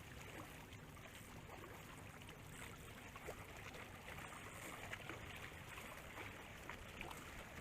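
Faint water washing and trickling along a shallow shoreline: a low, steady wash with scattered light ticks.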